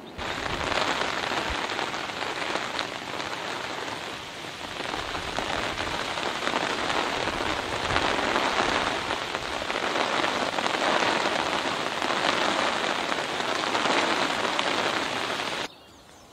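Rain falling steadily, a dense hiss of drops on surfaces, which cuts off suddenly near the end.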